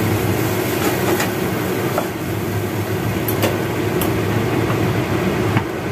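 Electric fan motor running steadily with a constant drone and hum, with a few light clicks of utensils over it.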